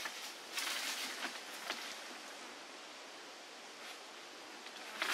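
Outdoor rustling and hiss, with a few light ticks in the first two seconds and a quieter stretch in the middle.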